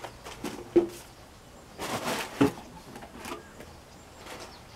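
Wooden beehive frames and boxes being handled: a few scattered light knocks and scrapes of wood on wood, the loudest about two and a half seconds in.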